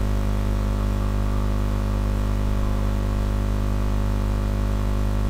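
Steady electrical mains hum, a low buzz with a string of evenly spaced overtones over a light hiss, unchanging throughout.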